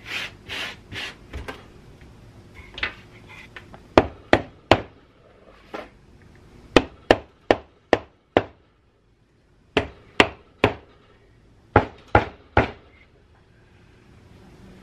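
Sharp knocks of a wooden block striking the rusty housing of an old Frigidaire repulsion-induction motor, in short runs of three to five blows about half a second apart. There are lighter scraping and handling noises at the start.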